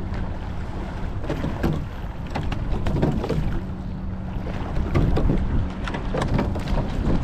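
Eight-oared rowing shell under way at a slow, light stroke: scattered knocks of the oars turning in their oarlocks as they feather and square, over water noise, with wind on the microphone.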